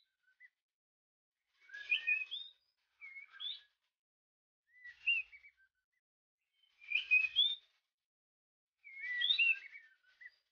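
White-rumped shama singing: five short phrases of clear, gliding whistles and warbles, about two seconds apart.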